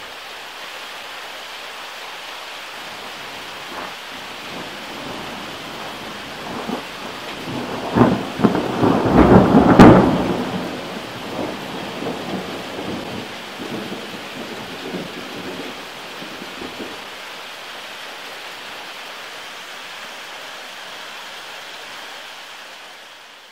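Steady rain with a thunderclap: the thunder builds about six seconds in, cracks loudest a few seconds later, then rumbles away over several seconds while the rain keeps on.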